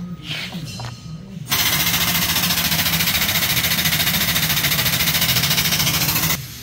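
Bend test press's jack pump running for about five seconds, a loud rapid chatter with hiss, driving the jack to bend a stainless steel weld test coupon. It starts suddenly about a second and a half in and cuts off just before the end, after a few light knocks of handling.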